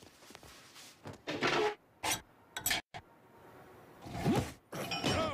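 Cartoon gym sound effects: clothing rustling and rubbing, a few sharp knocks and clanks from the bench and weight machine, and a short strained grunt near the end as the bar is gripped.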